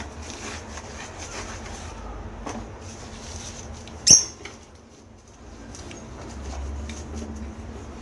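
Lovebird chicks squeaking in the nest with short, high chirps, and one sharp click about four seconds in.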